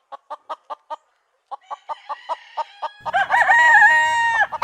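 Rooster clucking in quick short notes, about four a second, pausing briefly, then breaking into one long crow near the end.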